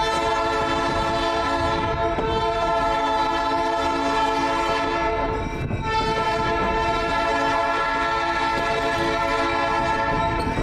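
Skunk Train locomotive's multi-note horn sounding two long blasts, a chord of steady tones, the first about five seconds long and the second starting after a brief break, over the low rumble of the moving train. The horn is sounding for the road crossing ahead.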